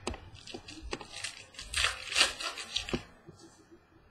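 Trading cards and their packaging being handled: scattered clicks and a crinkling, rustling stretch, loudest around the middle.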